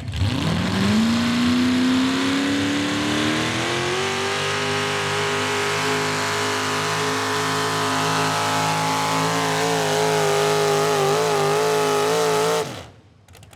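A pulling truck's engine at full throttle through a pull: it revs up over the first few seconds as the truck launches, holds high and steady, wobbles in pitch near the end, then is shut off suddenly about a second before the end.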